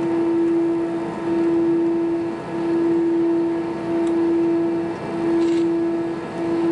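Airbus A320 engines running at taxi idle, heard from inside the cabin: a steady droning tone that swells and fades regularly about every second and a quarter, over a rushing background.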